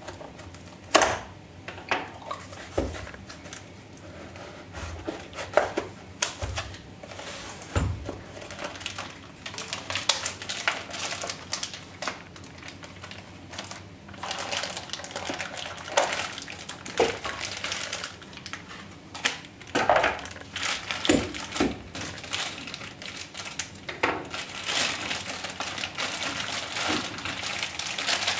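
Unpacking by hand: a cardboard box being opened and a plastic bag of metal chuck jaws crinkling, with irregular clicks and light clinks of the metal parts on a wooden workbench.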